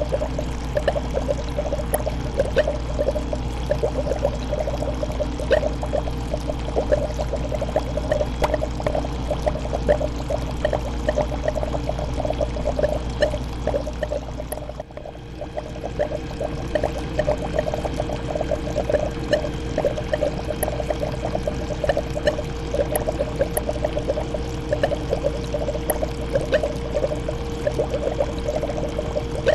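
Fish tank water bubbling and trickling without a break, over a steady low hum. The sound dips briefly about halfway through.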